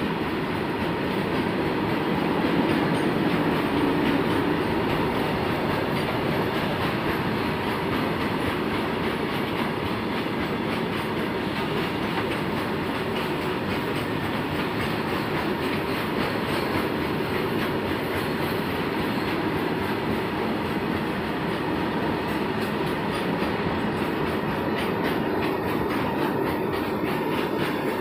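Open freight wagons of a long train rolling past at speed: a steady rumble and clatter of steel wheels on the rails, with a faint thin whine held throughout.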